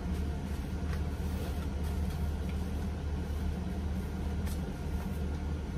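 A steady low machine hum runs throughout, with a couple of faint rustles as a knotted shirt hem is untied.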